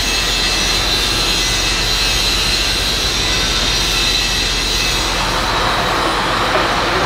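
Loud, steady machine noise: an even hissing whir with a thin high whine running through it, without breaks or knocks.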